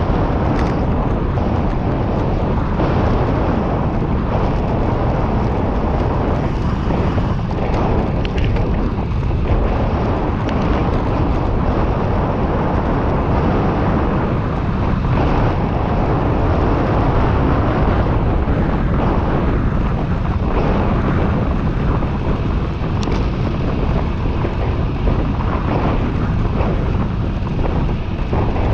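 Wind buffeting the microphone of a camera riding along on a bicycle descending at speed: a loud, steady rushing roar with no let-up.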